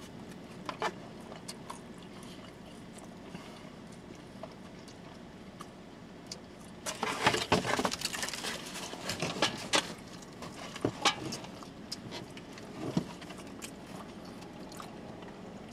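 Cardboard pizza box being handled and lifted: a burst of scraping and rustling about seven seconds in, then scattered knocks and clicks as the box is moved about. Before that there are only a few small clicks over a quiet background.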